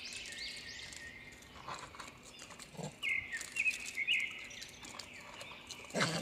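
Monkeys giving a few short calls over birds chirping; the loudest call comes near the end.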